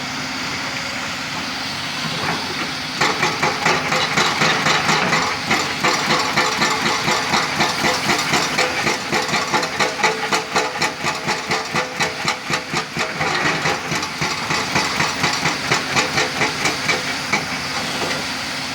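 Excavator running at a stone quarry: a steady engine hum, with a rapid rhythmic clatter of about three beats a second coming in about three seconds in and easing off near the end.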